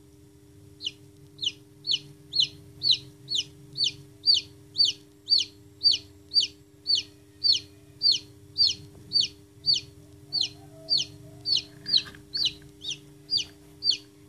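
Newly hatched chick peeping loudly and repeatedly, each peep short and falling in pitch, about two a second, starting about a second in.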